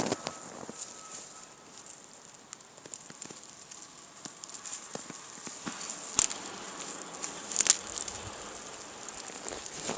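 Small wood fire crackling and popping over a steady hiss, with two louder snaps about six and seven and a half seconds in.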